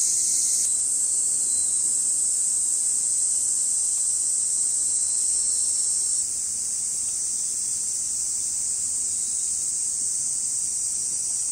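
A steady, high-pitched chorus of summer insects in woodland, running without a break and a shade quieter after about six seconds.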